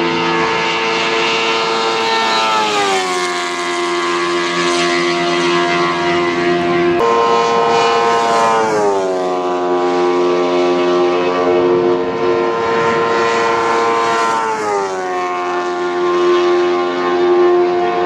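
Bike-engined formula race cars running at high revs on the circuit, their engine note holding a steady high pitch, falling away three times and jumping abruptly back up twice.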